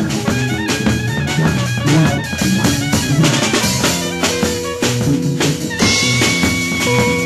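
Live jazz ensemble playing: drum kit and bass under guitars, with long held notes coming in about four seconds in and again near the end.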